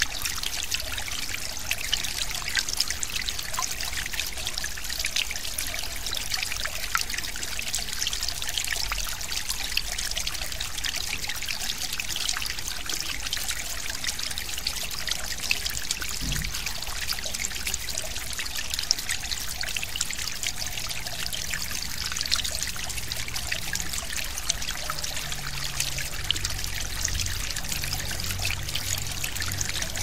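Stream flowing steadily, a continuous murmur full of small trickles and splashes.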